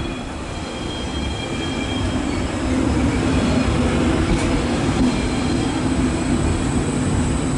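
Trenitalia Intercity train with an E401 cab car rolling past alongside the platform: a steady rumble of wheels and coaches on the track, with a faint high wheel squeal fading early. The rumble grows louder about two and a half seconds in as the coaches come level.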